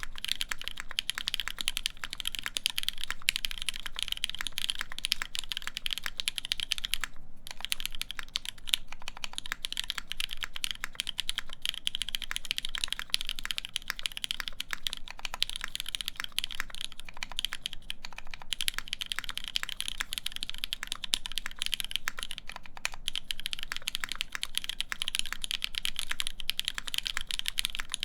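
Continuous typing on a mechanical keyboard with lubed Cherry MX Black linear switches, a full polycarbonate plate and Cherry Desko keycaps: a dense run of key clacks, with a brief pause about seven seconds in.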